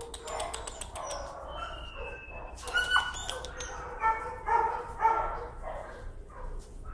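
Dog screaming and yelping in a string of short high cries, protesting pressure on its leash, the loudest about three seconds in. A few sharp clicks and rattles come near the start and again around the loudest cry.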